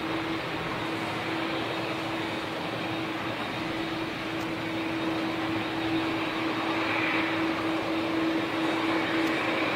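ATR 72 turboprop's engines and propellers running as it rolls along the runway. A steady drone with one constant humming tone, growing slightly louder toward the end.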